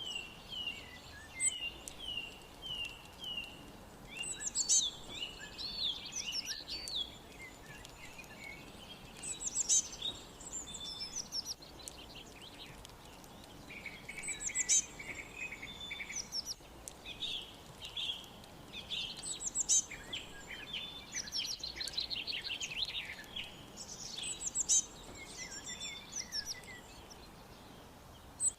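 Several birds chirping and singing, with short whistled calls and trills over a faint steady hiss. One bird repeats a loud, high song phrase about every five seconds, and a run of quick falling notes repeats at the start.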